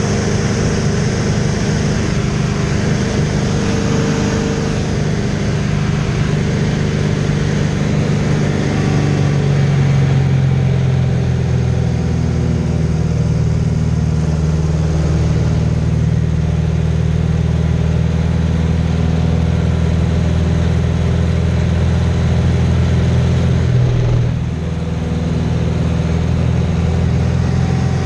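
Aerobatic biplane's piston engine and propeller heard from inside the cockpit, running steadily at power through the manoeuvres. The engine note shifts in pitch a few times and dips briefly about 24 seconds in.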